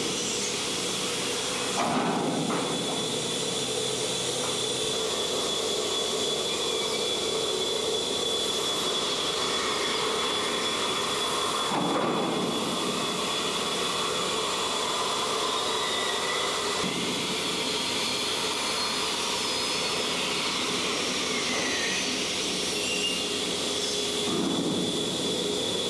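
Urakami vacuum crawler running on a pipe wall: a steady loud rushing hiss from its suction and jet nozzle heads, with a constant high whine above it.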